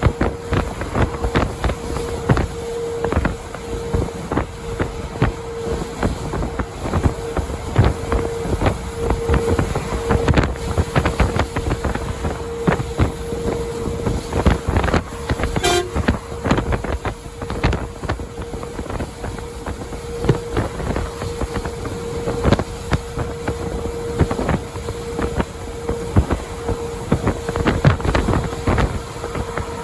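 Vehicle driving at highway speed: steady road rumble with wind buffeting the microphone, and a steady hum running underneath throughout.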